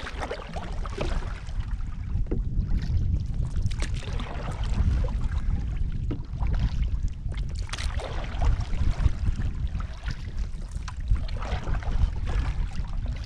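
Canoe paddle strokes: water swishing and dripping off the paddle blade, with a few sharp taps, over a steady low rumble of wind on the microphone.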